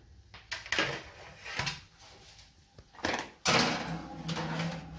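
A few knocks, then the loudest clank about three and a half seconds in, as a baking tray is slid onto a metal oven rack.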